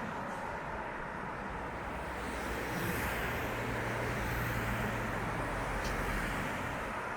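Road traffic noise, with a motor vehicle's engine hum swelling as it passes from about three seconds in until near the end.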